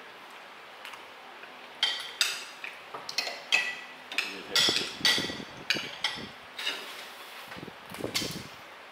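Metal spoons and forks clinking and scraping against ceramic plates during a meal: a string of short, sharp clinks that starts about two seconds in and goes on irregularly for several seconds.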